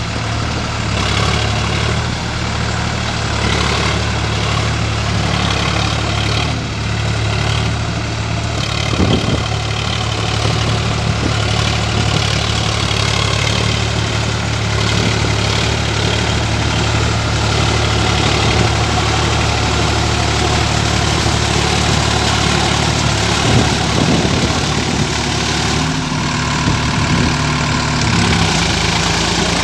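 Sonalika tractor's diesel engine running steadily at an even pitch.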